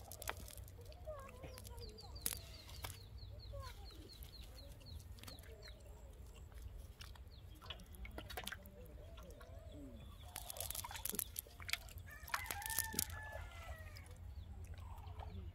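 Chickens clucking and calling in short bursts, with scattered sharp clicks and rustles from a cast net being picked apart by hand.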